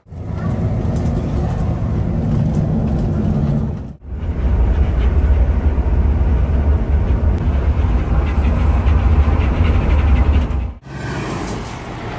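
Steady low rumble of a coach's engine and tyres on the road, heard from inside the cabin. It breaks off abruptly twice, and near the end a quieter stretch follows as a coach pulls away.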